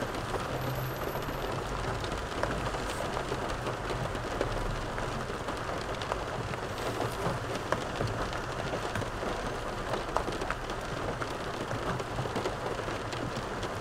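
Steady rain on the car roof heard from inside the cabin: an even hiss with many scattered light ticks of drops.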